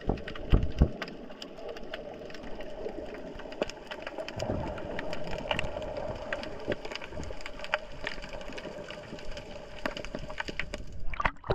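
Underwater ambience heard through a GoPro in its housing: a steady hum with many scattered clicks and crackles over it.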